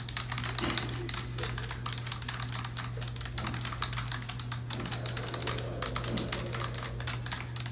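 Fast, continuous typing on a computer keyboard, a dense run of key clicks over a steady low hum.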